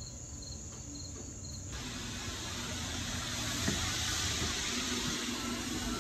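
Faint cricket chirps repeat for the first second and a half or so, then stop abruptly. A steady hiss follows.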